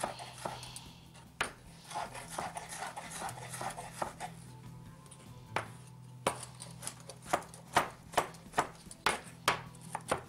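Chef's knife chopping a tomato finely on a wooden cutting board: scattered knocks at first, then a quicker, regular run of strokes about three a second in the second half.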